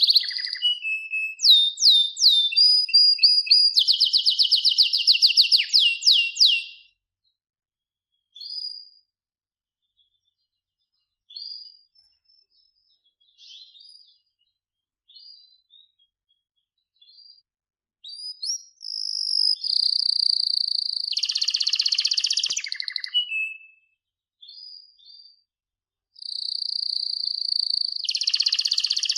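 Domestic canary singing: a long burst of rapid trills and rolling repeated notes, then a stretch of only a few short chirps with silent gaps, then two more long trilling phrases in the second half.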